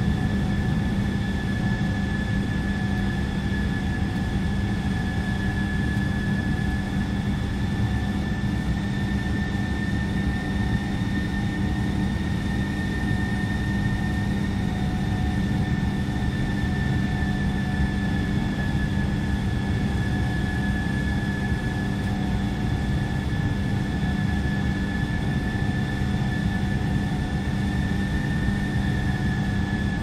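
Steady cabin noise inside a passenger jet: an even low rush with a thin, constant high whine over it.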